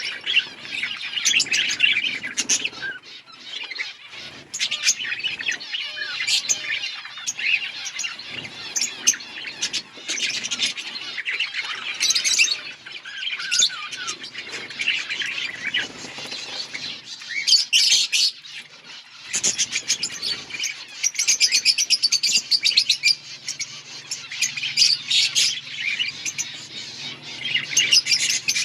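A colony of budgerigars chirping and chattering continuously, many birds calling at once, with sharp clicks scattered through it.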